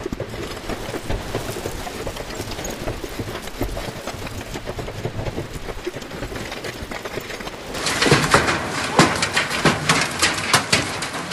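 Hailstones pelting a car, heard from inside the cabin behind a hail-shattered windshield: a dense, rapid run of dull knocks. About eight seconds in, a cut brings louder, sharper cracks of large hail striking close by.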